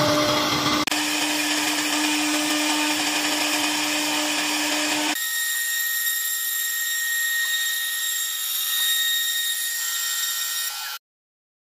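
CNC router spindle running steadily with a high whine as it engraves MDF and then routs through a laminated chipboard panel. The sound changes abruptly about a second in and again about five seconds in as separate clips are joined, and it cuts off suddenly near the end.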